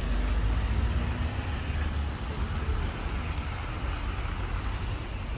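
Street traffic noise: a steady rumble of passing road vehicles that eases off slowly after about two seconds.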